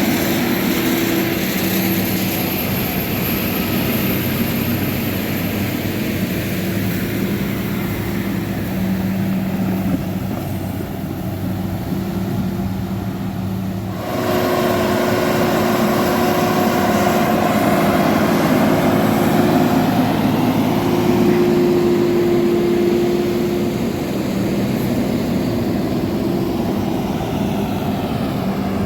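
John Deere 7430 Premium tractor's six-cylinder diesel engine running steadily under load while pulling a slurry tanker with soil injectors. About halfway through it becomes louder and its pitch rises slightly.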